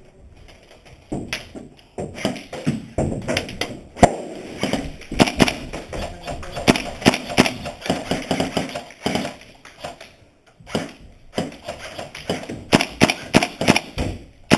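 Airsoft guns firing: repeated sharp shots scattered through, with a quick string of about three or four shots a second near the end.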